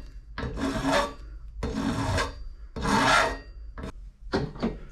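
Hand file stroking across the end of a steel action screw, chamfering its edge: three long rasping strokes, then a few short ones near the end.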